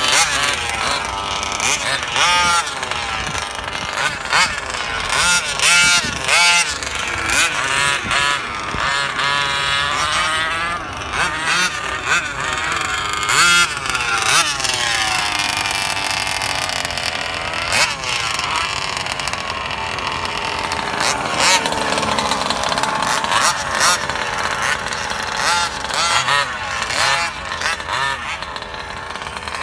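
Small two-stroke engine of a radio-controlled car revving up and down again and again as it is driven, each burst a rising then falling whine; it settles into a steadier drone in the last third.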